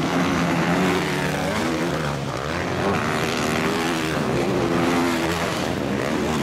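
Several motocross dirt bike engines racing, revving up and down in a continuous, overlapping drone.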